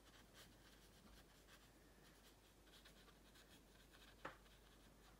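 Faint scratching of a round watercolour brush stroked back and forth over watercolour paper, with one short tap about four seconds in.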